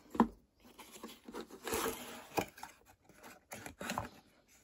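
A cardboard mailer box being opened by hand. There is a sharp knock just after the start, then scraping and rustling as the cardboard tab and lid are pulled open, with a few clicks along the way.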